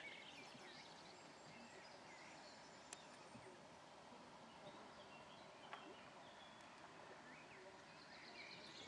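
Near silence: faint birds chirping over a quiet, steady outdoor hiss, with a single faint click about three seconds in.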